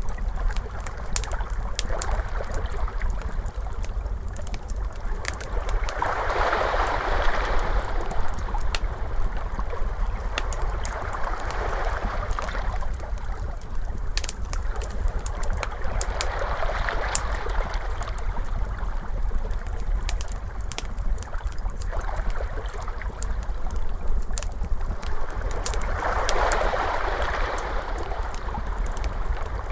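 Crackling fire, with many sharp pops and snaps, over ocean waves that wash in and swell about every five seconds, on a steady low rumble.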